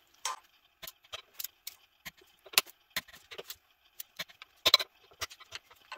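Torque wrench ratcheting on flywheel nuts as they are tightened to 40 foot-pounds: irregular sharp metallic clicks and clinks, loudest in a quick pair about three quarters of the way through.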